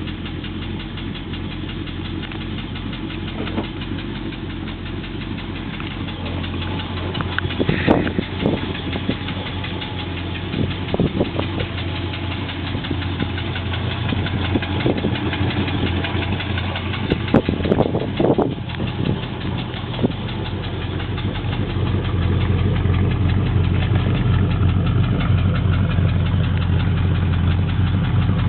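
Triumph Stag's V8 engine idling cold with an audible knock. A few sharper, louder clacks stand out about a third of the way in and again about two-thirds through, and the engine gets a little louder near the end.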